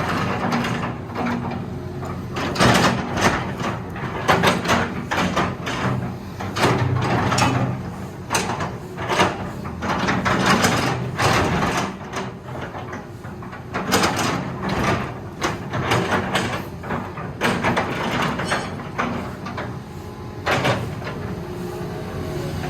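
Hitachi EX210K-5 excavator working, its Isuzu 6BG1 six-cylinder diesel running steadily, with repeated sharp metal clanks and knocks as the machine moves.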